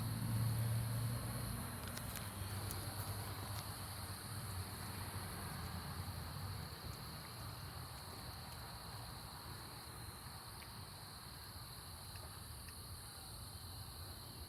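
Steady chorus of night crickets, with a low hum that is loudest in the first second or two and then fades, and a few faint ticks.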